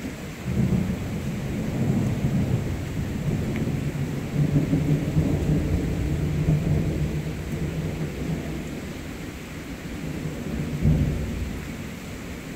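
Thunderstorm: steady rain falling, with a low rolling thunder rumble that swells and fades, surging once more about eleven seconds in.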